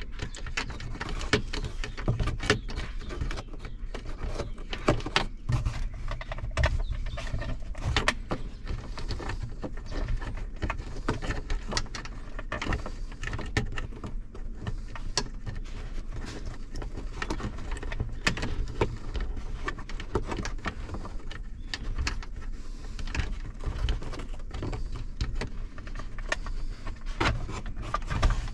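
Hands handling hard plastic overhead-console trim and a thin cable: irregular clicks, taps and rustles as the wire is fed through a drilled hole and pulled down, over a steady low hum.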